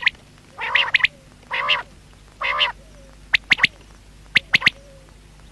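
Male common quail calling: three harsh, nasal notes in the first three seconds, then the sharp three-note 'pwit-pwit-wit' song given twice, about a second apart.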